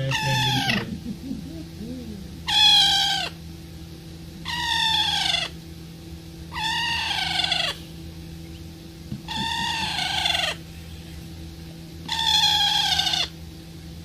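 A green parakeet calling over and over: drawn-out calls that fall in pitch, one about every two seconds, six in all, over a low steady hum.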